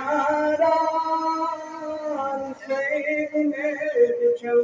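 A man singing a Kashmiri naat, a devotional song in praise of the Prophet, in a solo voice that holds long notes and ornaments them with quick wavering turns.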